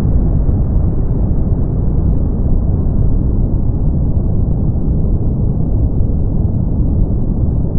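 Steady brown noise: an even, deep rumble with no high hiss.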